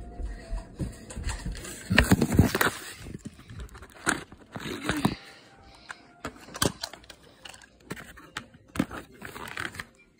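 Irregular crinkling, scraping and knocking of things being handled close to the microphone, loudest about two seconds in, with scattered sharp clicks after.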